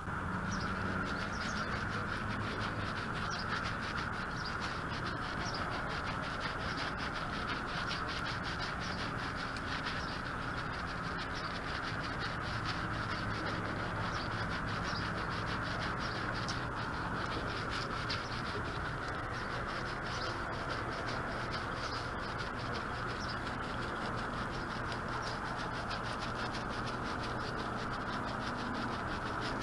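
Paintbrush bristles scrubbing over ribbed vinyl window trim as a stain remover is worked in: a continuous fast scratching, over a steady background drone.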